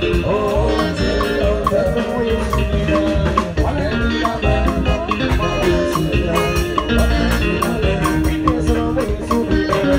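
A live band playing an upbeat gospel number with a steady beat, a shaker keeping time and a voice or lead instrument over it.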